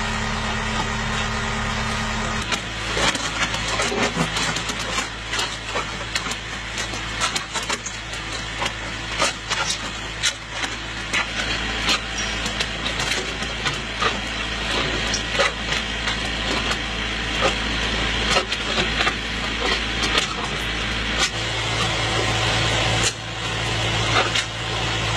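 Compact loader's engine running steadily while its concrete-mixer bucket discharges, with many irregular clicks and knocks over the hum. About three-quarters of the way through, a louder, deeper engine hum sets in.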